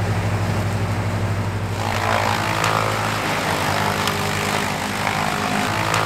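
Electric wood planer running with a steady motor hum. From about two seconds in, the rougher noise of wooden strips being planed rises over it, with a few light clicks.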